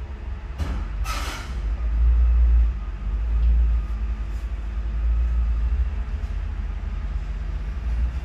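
Low rumble of heavy diesel machinery, a large container forklift and a container truck, running, with a short hiss of released air about a second in.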